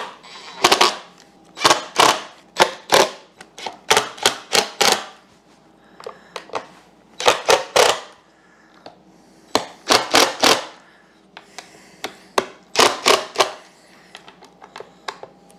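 DeWalt cordless driver run in about a dozen short trigger bursts, clattering as it drives bolts through a boat-seat pedestal base into T-nuts in a carpeted plywood board.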